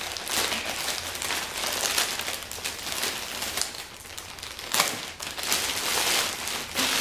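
Plastic poly mailer bag crinkling and crackling as it is pulled and torn open by hand, with a sharp loud crackle about five seconds in.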